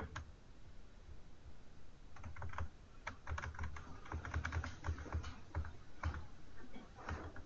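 Rapid clicking and tapping on a computer's keys or mouse, several clicks a second with soft low thumps, starting about two seconds in.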